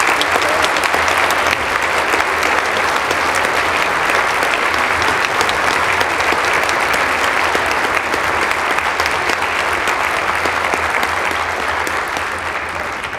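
Concert audience applauding steadily after a band piece ends, easing off slightly near the end.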